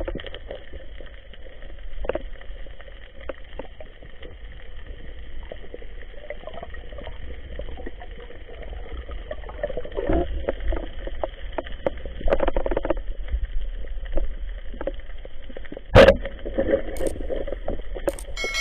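Underwater sound heard through an action camera's waterproof housing: a muffled, steady low rumble of water movement with swishing surges and scattered knocks. A sharp knock about two seconds before the end is the loudest sound.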